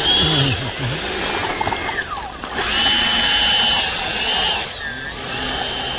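Freewing F-16's 90 mm electric ducted fan whining as the jet taxis. The pitch rises, holds briefly and falls several times as the throttle is opened and closed, with one long falling glide about two seconds in.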